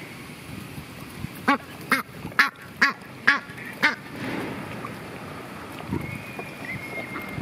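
Mallard quacking, a run of six quacks about two a second.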